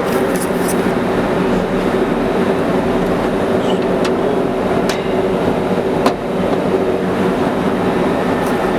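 A machine running steadily with a low, even drone, broken by a few sharp clicks about four, five and six seconds in.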